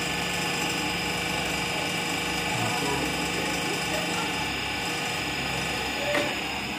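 Turbocharger balancing machine spinning a turbo's rotating assembly at 1500 rpm during a balance-check run, a steady whine of several tones. About six seconds in there is a click and the whine falls away as the machine stops.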